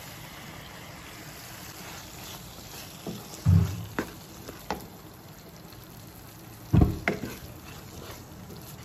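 Sliced bell peppers going into a wok of simmering chilli-tomato sauce and being stirred with a spatula: a steady low sizzle, two heavy thumps about three and a half and seven seconds in, and several sharp clacks of the spatula against the pan.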